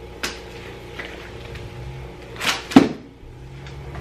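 Packaged toys and candy being handled and set down in an inflatable vinyl pool: a click early on, then a swish and a sharp knock near three seconds in, over a low steady room hum.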